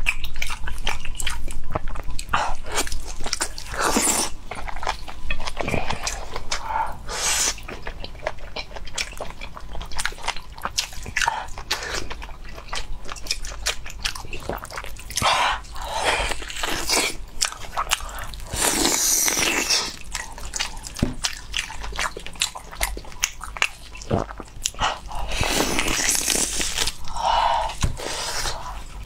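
Close-miked wet chewing and lip smacking of glazed braised pork knuckle, with sticky tearing and squelching as gloved hands pull the meat apart. A dense run of short, sharp clicks and smacks.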